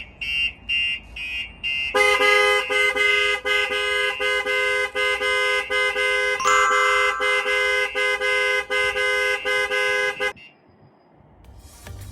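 Starline S9 vehicle alarm demonstrating its impact responses. First come short beeps repeating about four times a second, the warn-away given for a light impact. About two seconds in, the full alert for a heavy impact starts: a multi-tone alarm sounding in rapid pulses, which cuts off suddenly about ten seconds in.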